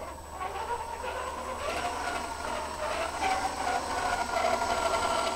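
Axial SCX10 II RC crawler driving on carpet: its electric motor and gearbox whir with a whine that steps up in pitch about two seconds in. The whine grows louder as the truck comes close.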